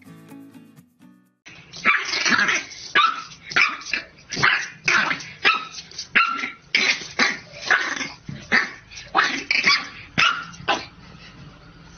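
A French bulldog puppy barks at its own reflection in a mirror. It gives a rapid run of high-pitched yaps, about two a second, starting about a second and a half in and stopping near the end.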